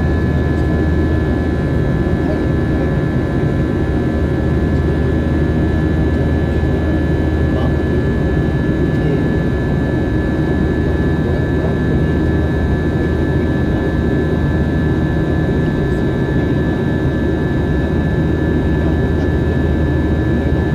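Jet airliner cabin noise: a steady low rumble of the engines and airflow, with a constant high-pitched whine over it, unchanging throughout.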